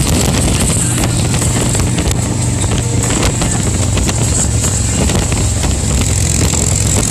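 Harley-Davidson Road Glide Special's V-twin engine running steadily at freeway cruising speed, with heavy wind rush on the microphone.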